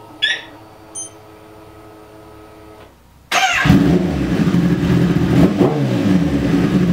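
Sport motorcycle switched on: two short electronic beeps over a faint steady hum. About three seconds in the engine starts abruptly and runs, with one brief rev near the middle.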